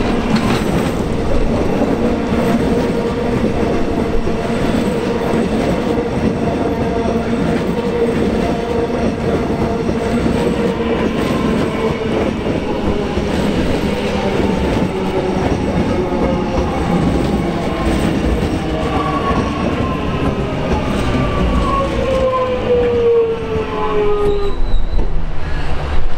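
X'Trapolis electric multiple unit running in over the points and slowing to a stop, with wheel and rail rumble under an electric whine whose several tones fall steadily in pitch as it brakes, dropping fastest over the last few seconds before it halts.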